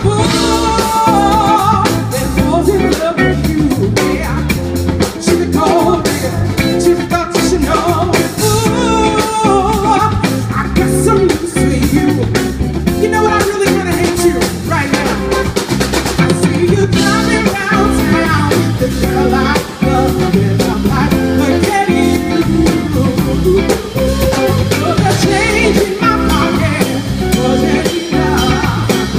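Live band playing through large PA speakers: a drum kit keeping a steady beat and electric guitar, with a woman singing lead over them.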